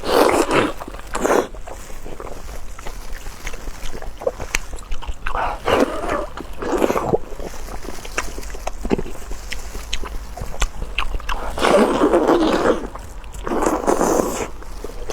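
Close-up eating sounds: wet chewing and slurping in several bursts of a second or so, with small mouth clicks between them.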